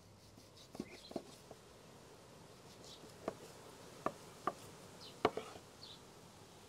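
Knife work trimming a raw lamb foreleg: about seven short, sharp taps and knocks, scattered and uneven, the loudest a little after five seconds in. Faint, brief high chirps recur in the background every second or two.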